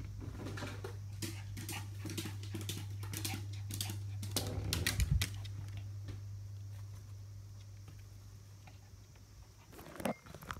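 Pomeranian's paws and claws pattering on stair treads, a quick run of light clicks that grows louder over the first five seconds and then thins out. A single thump comes near the end.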